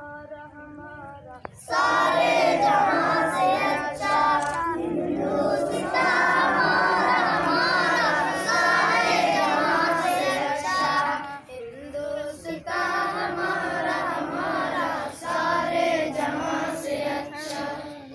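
A group of children singing a song together. One faint voice comes first, the group joins loudly about two seconds in, and the singing dips briefly about two-thirds of the way through before going on.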